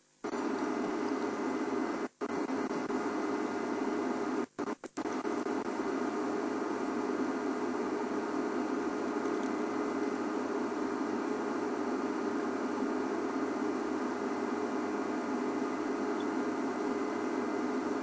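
Steady electrical hum and static hiss on the audio feed. It cuts out briefly a few times in the first five seconds, with a sharp click about five seconds in.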